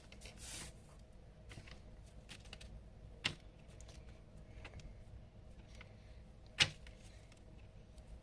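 Light clicks and taps of small toy pieces being handled on a table, with a short rustle just after the start and a louder tap about six and a half seconds in.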